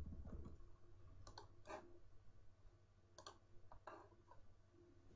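Faint, scattered clicks of a computer mouse, about half a dozen, some in quick pairs, over a low steady hum.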